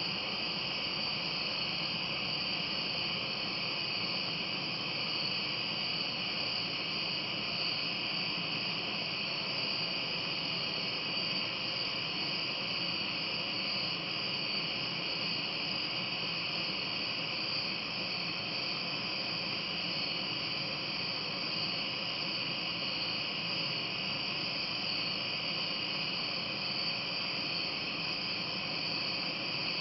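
Steady chorus of night-singing insects, a continuous high-pitched even drone with no breaks or changes.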